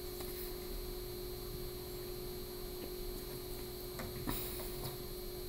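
Quiet room tone with a steady hum and a soft click a little past four seconds in.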